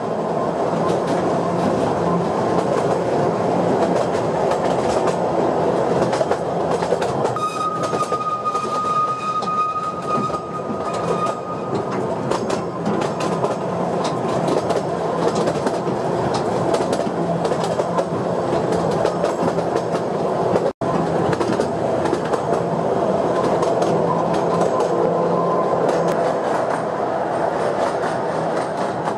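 Narrow-gauge train running, heard from its open carriage: a steady rumble of wheels on rails with clacking over the rail joints. About seven seconds in, a thin high wheel squeal holds for some four seconds, and near the middle the sound drops out for an instant.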